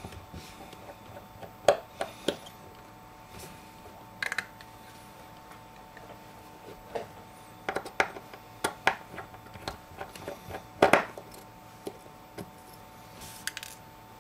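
Small metallic clicks and taps of a precision Phillips screwdriver and tiny screws on an iPhone 5's metal connector shield, coming irregularly, with the loudest click about eleven seconds in.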